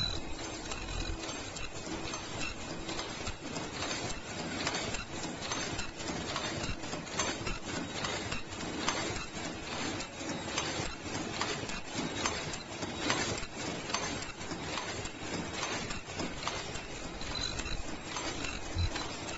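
Automatic face-mask production machine running: a steady stream of mechanical clicks and clacks from its moving parts, over a faint low hum.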